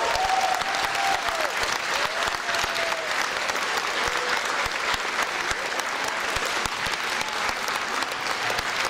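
A crowd applauding steadily in a large hall, with a few voices heard faintly over the clapping in the first seconds.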